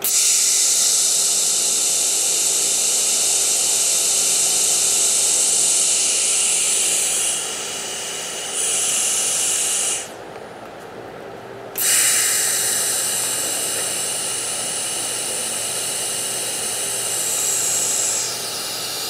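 DC TIG welding arc on stainless steel at 75 amps, a steady high hiss while the plates are tacked. The arc stops about ten seconds in, strikes again about two seconds later, and runs quieter near the end.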